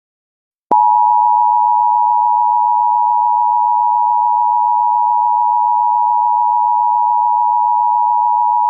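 Emergency Alert System attention signal: a loud, steady two-tone alarm that starts with a click just under a second in and cuts off suddenly.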